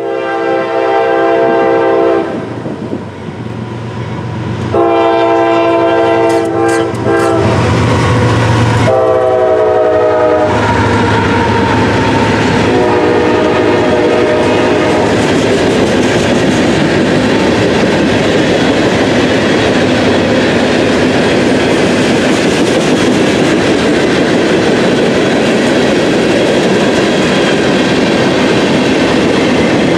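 Freight train's diesel locomotive sounding its multi-chime air horn in four blasts, warning for the crossing; the pitch slides down as it passes about ten seconds in. Then comes the steady rumble and clickety-clack of freight cars rolling by.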